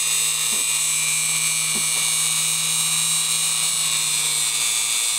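Small electric drill with a 3 mm bit running with a steady motor whine, boring slowly into a rubber coating.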